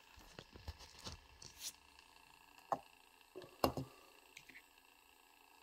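Light handling knocks and clicks as a small die-cast metal helicopter model is lifted off a rotating display turntable and another is set down, with two sharper knocks about two and a half and three and a half seconds in. Under them is the faint steady hum of the motorised turntable, a sound described as awful.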